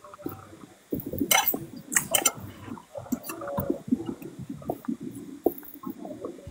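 Close-up eating sounds: a man chewing with wet mouth noises, with a few sharp clicks about a second and two seconds in.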